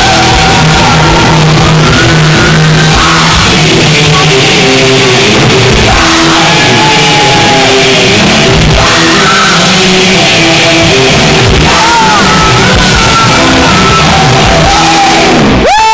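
Live rock band playing loudly, with electric guitar and a shouted, sung vocal. Near the end the singer's voice swoops up into a long held note.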